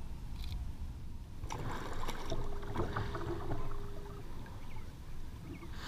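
Sea water lapping and splashing against a plastic kayak hull as it moves, with a steady low rumble of wind on the camera microphone. A faint steady hum comes in for a couple of seconds partway through.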